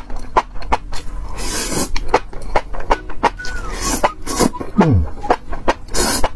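Close-miked slurping and wet chewing of spicy enoki mushroom strands, with many sharp mouth clicks and smacks. Two long slurps come about a second and a half in and near the end.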